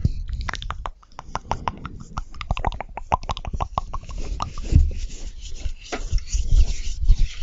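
Close-miked wet mouth sounds of chewing marshmallow: many quick sticky clicks and smacks, with a few heavier low thumps.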